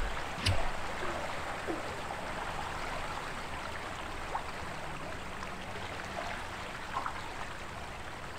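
Flowing river water, a steady rushing hiss, with a dull knock about half a second in.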